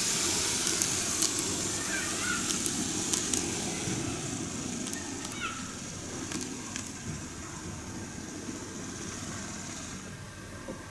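N gauge model train (Greenmax Kintetsu 12410 series four-car set) running on plastic track: a steady whirring hiss from the motor and wheels with scattered sharp clicks. It eases off and dies away about ten seconds in as the train comes to a stop.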